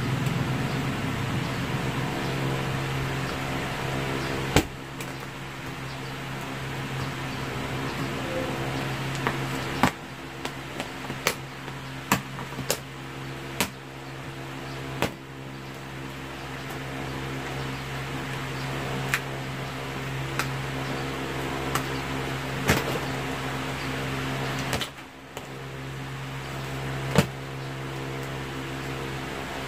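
Scissors snipping through the plastic strapping and wrap of a clothing bale: a dozen or so sharp clicks, several in quick succession about ten to fifteen seconds in and single ones later. Under them runs a steady electric motor hum that dips twice.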